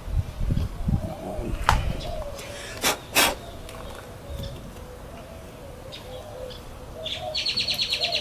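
Handling thumps and two sharp clicks about three seconds in as small screws are tightened by hand with a Phillips screwdriver. A dove coos faintly in the background, and a quick high bird trill comes near the end.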